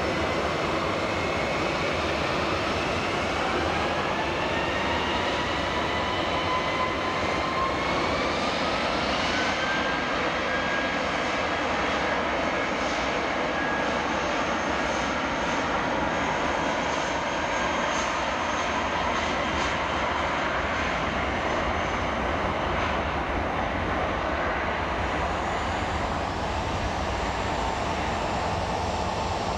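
Airbus A319 twin jet engines spooling up to take-off power: a rising whine climbs over several seconds from about three seconds in, then holds steady over a continuous loud jet noise during the take-off roll.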